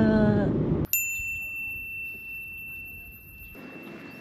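A single bright ding about a second in: one high ringing tone that holds steady and slowly fades over the next few seconds.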